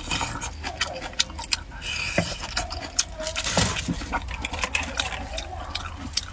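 Close-miked eating: wet chewing and lip smacks, with a quick run of sharp mouth clicks.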